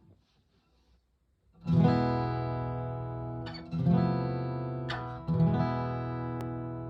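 Martin Special 16 acoustic guitar: the same chord strummed three times, about a second and a half in, then roughly every two seconds, each left to ring and slowly fade.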